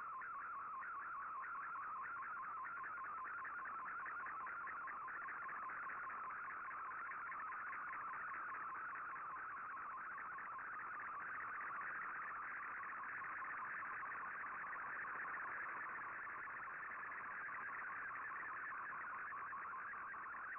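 Shortwave digital picture signal decoded by Fldigi as a colour image: a steady, fast-warbling stream of tones between about 1 and 2.3 kHz, the sound of an image being sent line by line.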